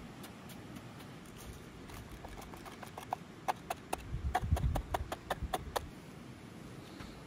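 A quick run of sharp knocks, about five a second, starting about two seconds in and stopping near the six-second mark, with a dull low thumping under the middle of the run.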